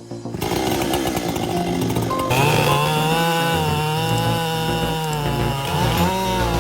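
Chainsaw running at high revs, its engine pitch sagging and recovering a few times as it works.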